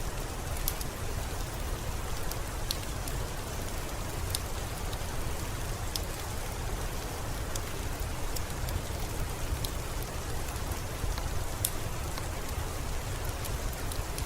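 Steady rain falling, a continuous hiss with a low rumble underneath and scattered individual drops ticking sharply on a hard surface.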